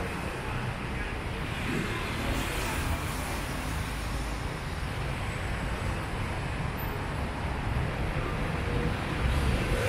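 Road traffic: a steady, noisy rumble of passing vehicles that grows a little louder near the end as another vehicle comes closer.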